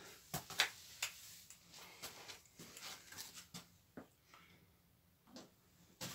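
Scattered light clicks, taps and rustles of a hand-held siphon-cup sandblasting gun and its coiled air hose being handled, the gun not yet blasting.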